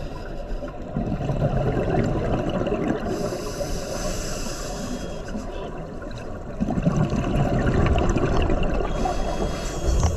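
A scuba diver breathing through a regulator underwater: two long exhalations of bubbling, each followed by the hiss of a breath drawn through the regulator.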